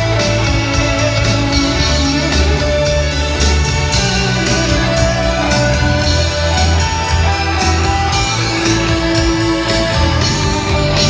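Rock band playing live through a PA, a guitar-led passage over bass guitar and drums with cymbals ticking steadily.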